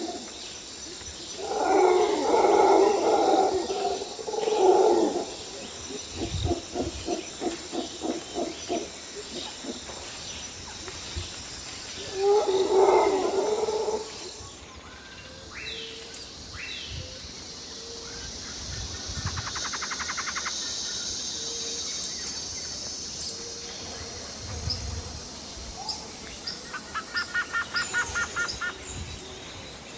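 Outdoor animal calls: two loud calls, each a few seconds long, the first followed by a quickly pulsing call. Later, bird chirps, a fast trill and a rhythmic series of short calls.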